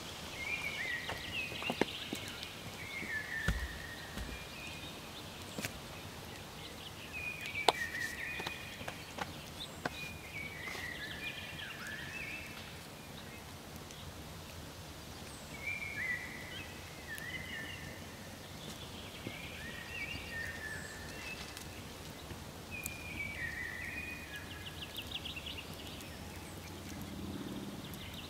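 A songbird singing short phrases of a few quick notes, repeated every couple of seconds with pauses between, over a steady outdoor hiss. A few sharp clicks and snaps stand out, the loudest about 2 and 8 seconds in.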